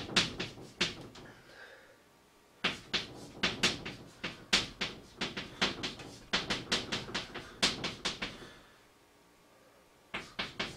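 Chalk writing on a blackboard: quick taps and short strokes of the chalk as characters are written, in three spells broken by pauses of one to two seconds.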